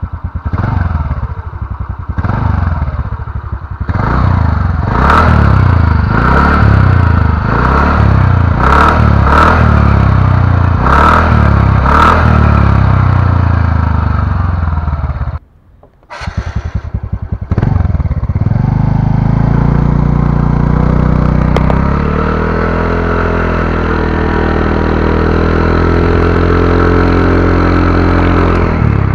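TVS Ntorq 125 scooter's single-cylinder engine through its stock exhaust, revved in repeated throttle blips with sharp clicks at the peaks of several blips. After a brief break about halfway through it runs at a steadier, slowly changing note as the scooter is ridden.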